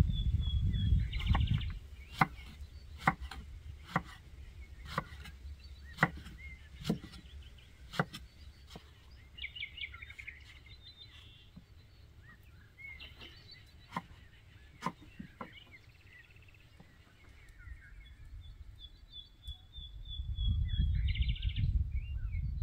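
A kitchen knife chopping peeled eggplant on a wooden log chopping board, sharp knocks about once a second, then a few more after a pause. Birds chirp and trill around it, and a low rumble comes at the start and again near the end.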